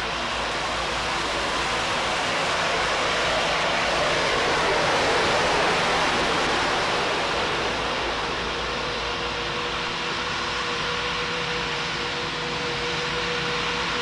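Aircraft engine noise: a broad rushing sound that swells to a peak about five seconds in and then eases off, with a steady whine coming in after about eight seconds.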